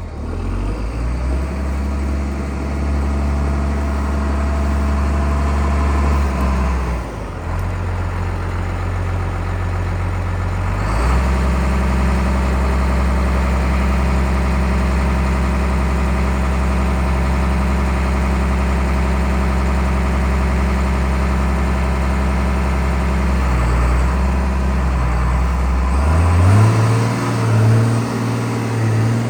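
New Holland 8360 tractor's 7.5-litre six-cylinder turbocharged diesel engine running. Its engine speed rises about a second in, dips briefly around seven seconds, climbs again around eleven seconds and holds steady, then changes pitch near the end.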